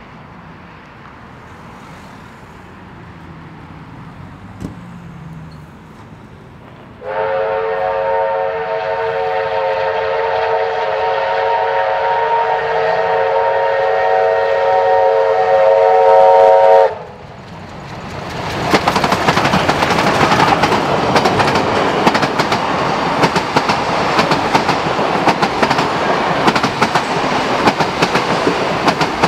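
Steam locomotive whistle sounding one long steady blast of about ten seconds as the train approaches, growing a little louder before cutting off sharply. The train then passes close by, its wheels clattering over the rail joints.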